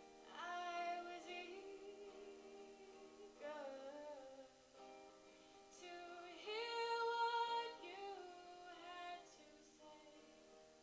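A woman singing to her own acoustic guitar: several sung phrases with short gaps between them, the guitar ringing on through the gaps. The loudest phrase comes a little past the middle.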